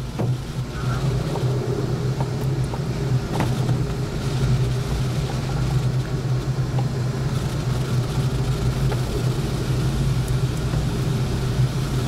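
Steady low rumble of air rushing past a glider's cockpit canopy in flight.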